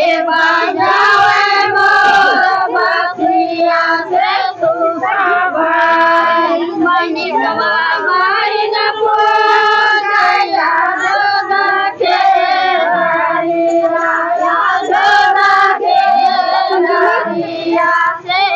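A group of girls and women singing a devotional song together, their voices holding long drawn-out notes.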